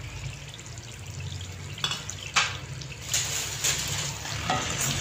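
Chicken karahi on low heat: two sharp metal clinks about two seconds in as the steel bowl of spent charcoal is lifted out of the pan, then a spatula stirring the chicken through the bubbling gravy.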